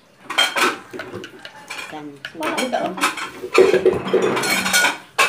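Metal spoon clinking against a glass mug, with dishes and cutlery clattering at the table in a run of sharp clicks.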